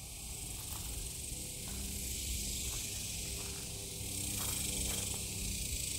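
Outdoor background: a steady high hiss, with a low rumble and faint soft knocks underneath.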